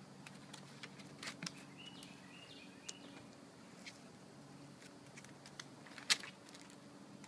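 A dog and a cat wrestling on wooden deck boards: faint scattered clicks and scuffles of claws and paws on the wood, with one sharper click about six seconds in. A faint steady low hum runs underneath, and there is a brief faint chirp about two seconds in.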